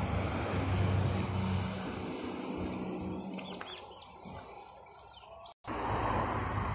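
Outdoor background: a low motor hum that fades over the first few seconds, a few faint bird chirps, then a sudden brief dropout before the hum and noise return.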